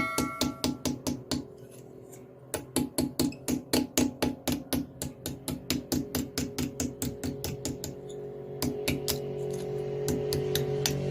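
Rapid, evenly spaced hammer blows on metal, about four a second, typical of forging at an anvil. Music with sustained tones fades in over the second half.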